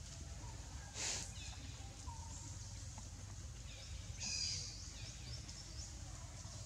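Forest ambience: a steady low rumble with faint short chirps of small birds, and a brief rustle of leaves about a second in.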